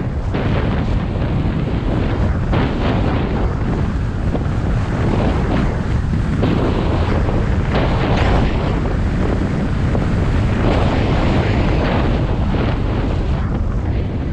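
Wind buffeting the microphone of a skier moving downhill, a steady heavy rumble, with skis hissing and scraping over packed, tracked-up snow in surges as he turns.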